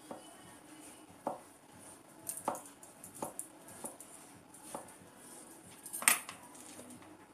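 Metal teaspoon scooping out the soft centre of raw zucchini rings on a plastic cutting board, with scattered light clicks and taps of the spoon against the rings and board. One louder clack comes about six seconds in.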